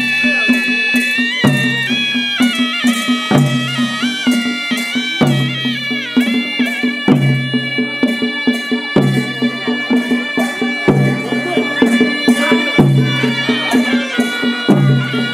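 Traditional folk music: a reed-like wind instrument plays an ornamented melody over a steady drone, with a low drum stroke about every two seconds.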